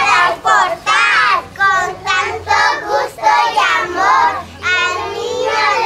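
Young children singing, high voices in short sung phrases.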